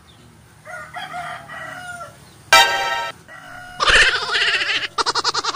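A rooster crowing loudly, several calls from about halfway in, with fainter calls before.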